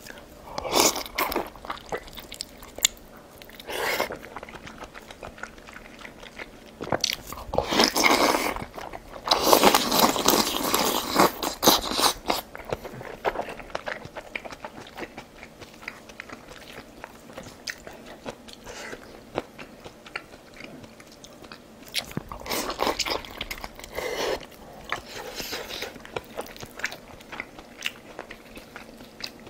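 A person chewing and crunching food in bursts, loudest about ten seconds in and again near the end, with quieter chewing between.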